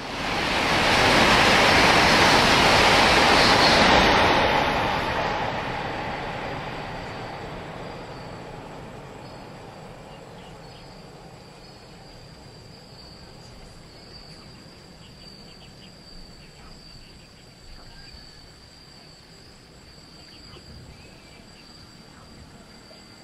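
Taiwan High Speed Rail 700T electric high-speed train passing at speed on a viaduct: a loud, even rushing noise for about the first four seconds. The noise then fades away gradually over the next several seconds as the train recedes.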